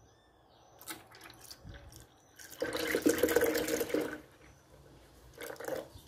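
Milk poured into a plastic blender jar onto canned peaches, a splashing pour of about a second and a half starting about two and a half seconds in, with a few light taps before and after.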